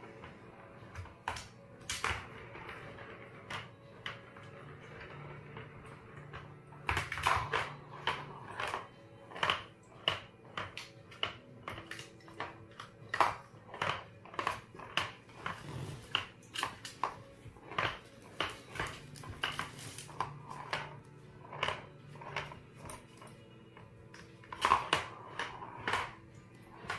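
A plastic ball clattering and rolling inside a plastic circular cat track toy as a kitten bats at it, giving irregular sharp clicks and knocks, some in quick runs. Faint music plays underneath.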